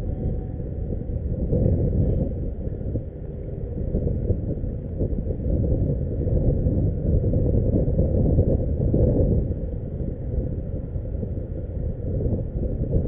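Low, uneven rumble of wind buffeting an action camera's microphone on a kayak on open water.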